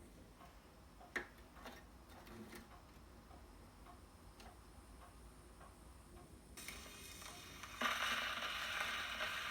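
Scattered clicks and small knocks from a 1936 wind-up gramophone being handled, the strongest about a second in. About two-thirds of the way through, the needle drops into the shellac 78's run-in groove and surface hiss and crackle begin, growing louder near the end as the record spins up to the music.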